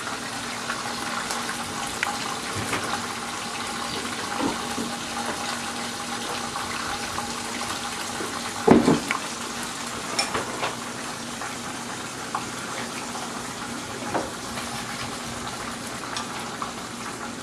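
Stovetop pan sizzling steadily as carrots glaze in butter, their cooking water boiled off, with a faint steady hum under it. A single knock sounds about halfway through.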